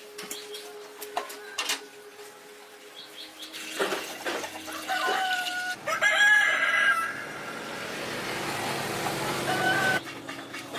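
A few sharp knocks, then a rooster crowing at length, with chickens clucking.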